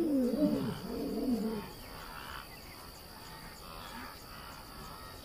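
A lion's roaring bout tailing off in a few deep grunts during the first second and a half. After that, only faint night insects with a steady high trill.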